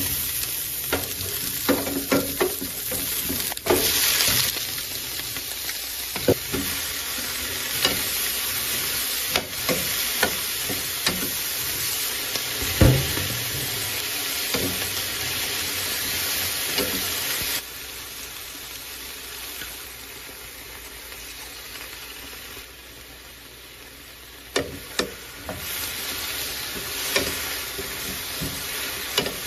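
Garlic and then cabbage, enoki mushrooms and bok choy sizzling in oil in a nonstick frying pan, with a steady hiss. A wooden spatula stirs them, knocking and scraping against the pan. The sizzle drops quieter a little past halfway and picks up again near the end.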